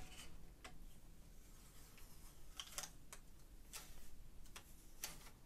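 Fingernails picking at and peeling protective plastic film off a motherboard's rear I/O cover: faint, scattered clicks and crinkles.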